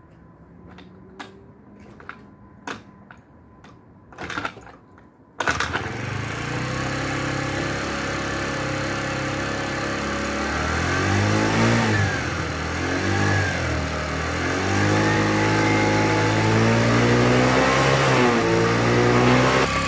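A few sharp clicks and knocks, then a Chinese scooter engine catches about five seconds in and keeps running, its revs rising and falling a few times with the throttle. It runs because the stop wire that was earthing the ignition has been disconnected.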